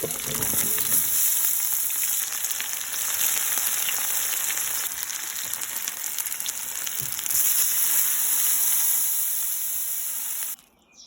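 Food frying in a pan: a steady sizzle with fine crackles, growing louder for a few seconds about a second in and again in the second half, then cutting off suddenly just before the end.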